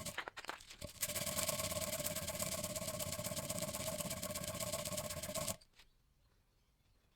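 A few clicks, then a small electric power tool runs with a steady whine for about four and a half seconds and cuts off suddenly.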